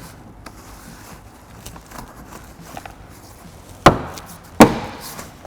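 Two sharp knocks about 0.7 s apart, a hand striking the plastic door trim panel to snap its retaining clips into the door, after a few light clicks and handling noises.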